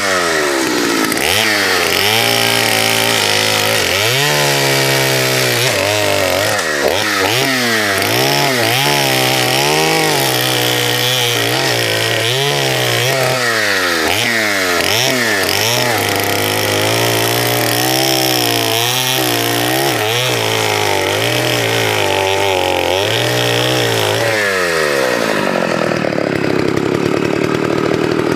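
Vintage two-stroke chainsaw cutting small wood, its engine pitch rising and falling over and over with the throttle and the load. About three seconds before the end it drops back to a steady idle.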